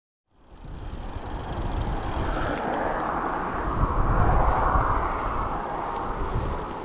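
Wind rumbling on an action camera's microphone, mixed with the rush of riding along a road. It fades in at the start and swells to its loudest about four seconds in.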